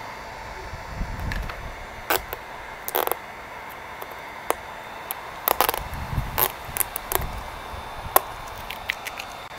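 Electric heat gun blowing steadily with a faint whine, heating the old decals on a plastic dirt-bike number plate. Over it come scattered sharp clicks and crackles as the softened stickers are picked and peeled off the plate, in two busy spells with quieter gaps between.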